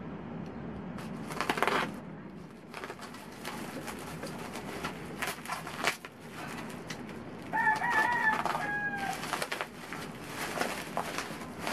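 Black plastic wrap crinkling and tearing as a shrink-wrapped parcel is cut open with a box cutter. A rooster crows once, a call of about a second and a half, around eight seconds in.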